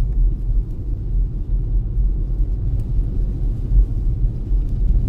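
Car driving on a snow-covered road, heard from inside the cabin as a steady low rumble of engine and tyres.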